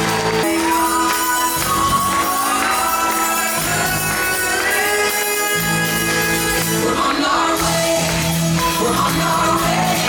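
Stage-show music with singing, played loudly in a large hall, with a steady band backing and a sung melody.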